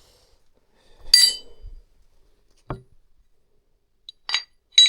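A few light metallic clinks with a short ring, the loudest about a second in and three more close together near the end, with a duller knock in between.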